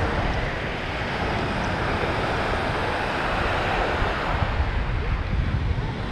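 Ocean surf washing onto a sandy beach, with wind buffeting the microphone as a steady low rumble.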